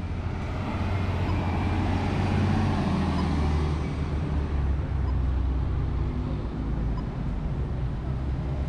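Road traffic at an intersection: a city bus and cars driving through, with a steady low engine rumble. The traffic swells loudest about two to three seconds in.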